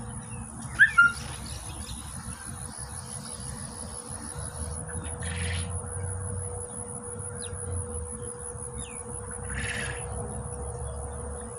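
A bird gives two short, loud calls about a second in, over a steady high insect drone. Water splashes briefly about five seconds in and again about ten seconds in.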